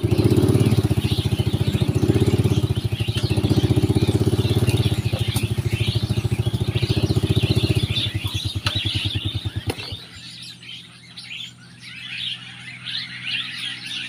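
A small motorcycle engine running close by with an even pulsing beat, loud for about eight seconds, then fading away about ten seconds in. Small birds chirp throughout.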